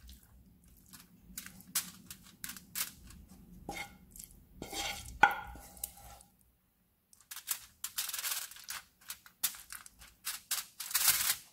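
A spoon spreads and pats thick masala filling over a fish on aluminium foil, making irregular scrapes and dabs with rustles of the foil and a couple of light clinks.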